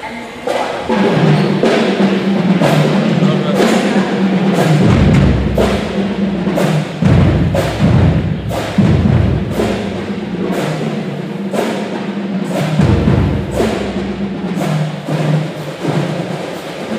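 A pep band plays with brass: low brass holds bass notes over a steady drum beat of about two strokes a second. Deeper bass-drum hits come in two stretches, around a third of the way in and again past the middle.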